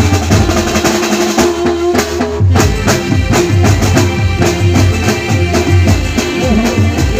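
Live garba band music: a dhol and drum kit beating a fast, driving rhythm under a held keyboard line, with a very short break about two and a half seconds in.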